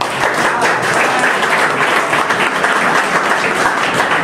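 A roomful of students applauding, dense steady clapping.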